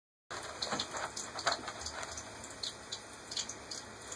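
A cat clawing and biting at a roll of toilet paper: irregular rustling and crinkling of the paper, in quick uneven crackles.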